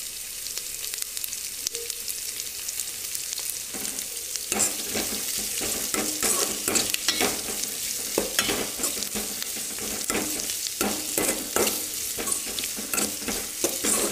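Chopped onions sizzling steadily as they fry in hot oil in a metal pot. From about four seconds in, a steel ladle stirs them, scraping and knocking against the pot again and again.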